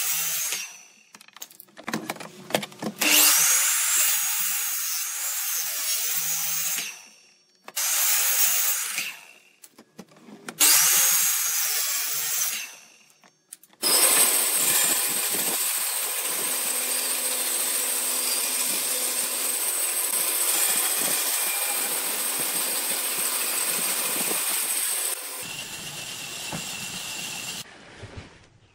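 Power miter saw making four separate crosscuts through a stack of hardwood boards, each a blade whine with loud cutting noise that stops between cuts. Then a band saw cuts steadily through the wood for about eleven seconds, falling quieter near the end.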